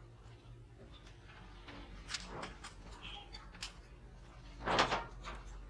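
Light, scattered clicks and taps of a metal sword guard and threaded rod being handled on a wooden workbench, with one louder short scrape about five seconds in. A faint steady low hum runs underneath.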